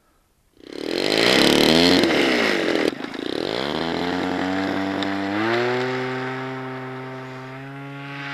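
RC warbird model's engine starting up loud, its pitch sweeping up and down as it is revved, breaking off abruptly about three seconds in. It then runs up to a steady high pitch at takeoff power and slowly fades as the plane rolls away.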